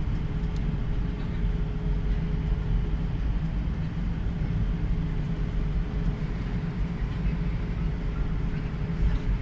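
Steady low rumble of an airliner's cabin as the plane rolls on the ground after landing, with a faint steady whine running through it.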